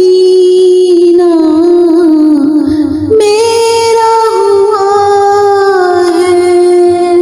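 A single high voice singing a slow melody in long, held notes, stepping up in pitch after a short break about three seconds in.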